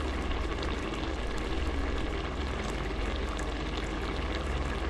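Thick tomato-based goulash sauce simmering in a pot, its bubbles popping in many small, irregular clicks over a steady low hum.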